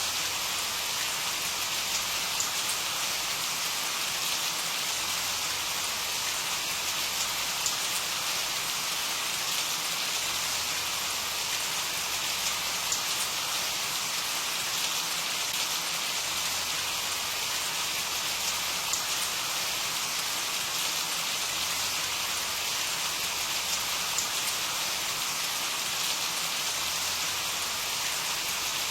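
Steady rain falling, a dense even hiss with scattered individual drops ticking on a surface.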